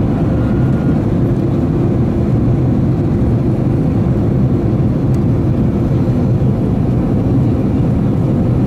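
Steady jet engine and airflow drone inside the cabin of an Airbus A330-200 airliner descending to land, heard at a window seat over the wing, with a steady low hum running through it.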